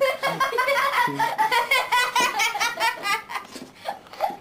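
Hearty human laughter in rapid, repeated bursts, thinning out near the end.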